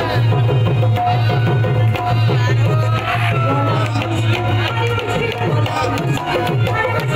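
Live folk music played loud through a PA system: a hand-drum rhythm with a bending melody line over it and a steady low drone beneath.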